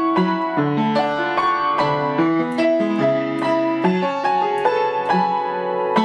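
Solo piano playing a pop-song arrangement: a melody over chords and moving bass notes, struck in quick succession and left to ring.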